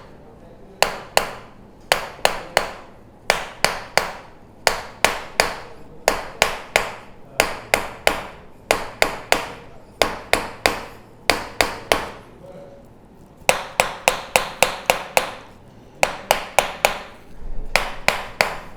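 Repeated sharp hard taps, two or three a second in uneven runs with short pauses, each with a brief ringing tail.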